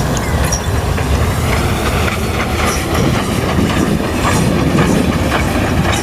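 A train running along the track: a steady, loud rumble with the clickety-clack of its wheels.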